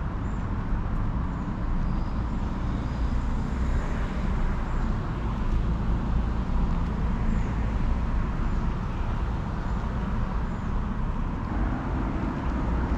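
Steady low outdoor rumble of general background noise, with faint short high chirps now and then.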